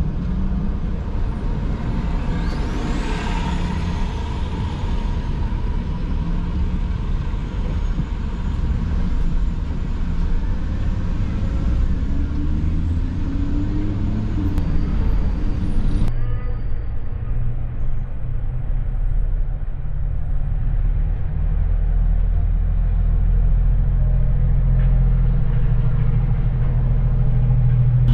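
A car driving in city traffic, heard from inside: a steady low engine and road rumble with the traffic around it. About halfway through, the higher street sounds cut off suddenly and only a steadier low hum remains.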